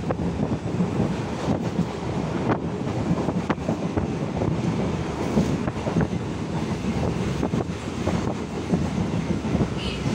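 ICF-built Medha electric multiple unit (EMU) local train running, a steady rumble of wheels on rail with wind on the microphone. A few sharp clicks are spread through it.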